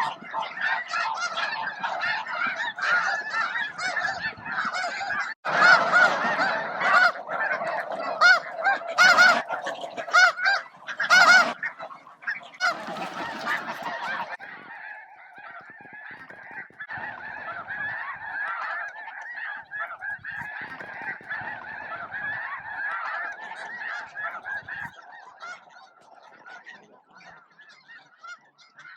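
Large flock of snow geese honking, many calls overlapping into a continuous chorus. Loud close honks swell about a fifth of the way in, and the chorus drops to a quieter, thinner level about halfway through.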